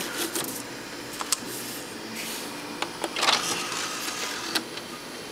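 CD compartment door of a Sony ICF-CD543RM under-cabinet CD clock radio opening: a few sharp clicks from the front-panel controls, then a short mechanical whirr and rattle about three seconds in as the door opens.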